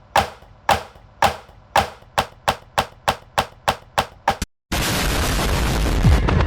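A run of about a dozen sharp knocks that speed up from about two a second to about four a second, then cut off suddenly. A steady loud rushing noise starts right after.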